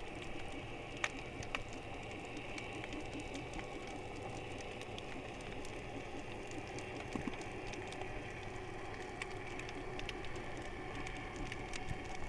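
Underwater ambience on a rocky reef, muffled through the camera's waterproof housing: a steady low hiss and rumble with scattered sharp clicks, two of them louder between one and two seconds in.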